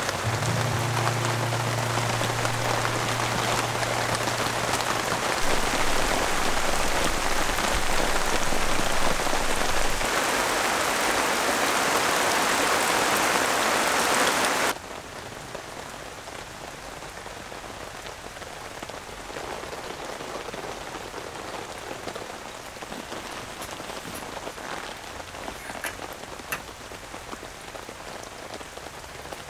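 Heavy, steady rain falling, which drops suddenly to a lighter, quieter rain about halfway through.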